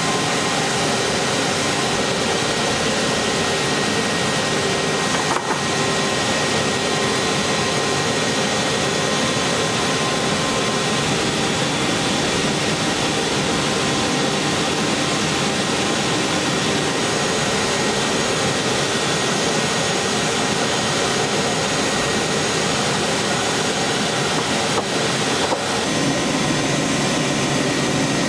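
Turbine of an AH-64D Apache Longbow running steadily: a loud rushing whine with several fixed high-pitched tones.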